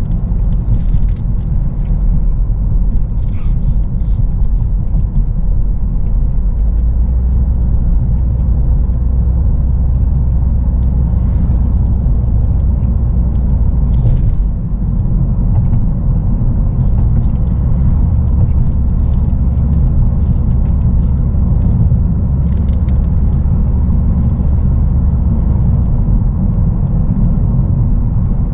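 Steady low rumble of a car heard from inside the cabin, with faint light rattles and ticks now and then.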